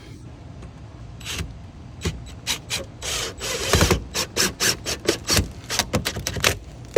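Handling noise from parts being worked on: a run of knocks and clicks that grows denser toward the end, with a rubbing scrape about three seconds in.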